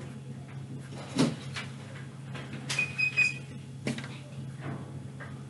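Indoor room ambience: a steady low hum with a few scattered knocks and bumps, and a brief high squeak about three seconds in.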